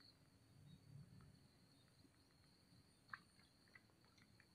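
Near silence: a faint, steady high-pitched insect drone, with a soft low rumble about a second in and a few faint clicks around three seconds in.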